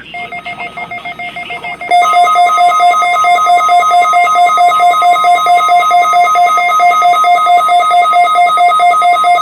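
A weather radio alerting: rapid pulsing two-pitch beeps. About two seconds in they are joined, much louder, by the steady 1050 Hz NOAA Weather Radio warning alarm tone, here sent as the weekly test of the alarm system.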